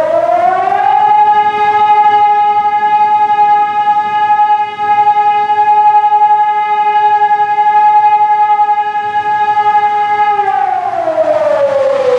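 Outdoor warning siren winding up to a loud, steady wail of two tones sounding together. It holds for about nine seconds, then starts winding down near the end.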